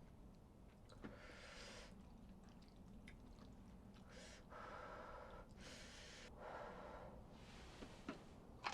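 A person's soft breathy puffs and exhales while eating, about five in a row, with a couple of small mouth or utensil clicks near the end.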